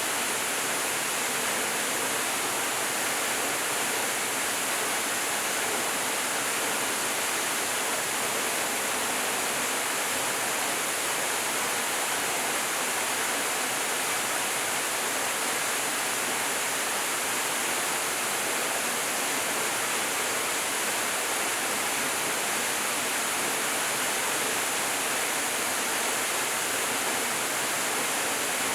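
Stream water flowing: a steady, even rush with no breaks or separate splashes.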